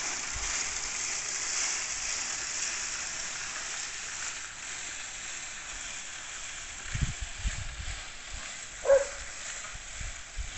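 Dry tree branches dragged along a dirt road, a steady scraping hiss that slowly fades as the load moves away. A few low thumps come near the end, followed by a short, sharp pitched call about nine seconds in, the loudest sound.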